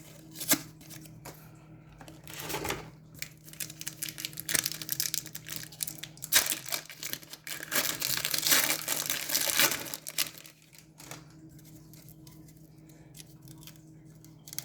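Hockey card pack wrapper being ripped open and crinkled in the hands, a dense crackling that builds about two seconds in, is strongest in the middle and stops near the two-thirds mark.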